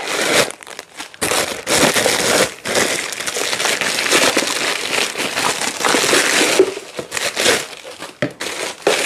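Clear plastic bag crinkling and rustling as it is handled and unwrapped by hand, steady for several seconds and then broken into short bursts near the end.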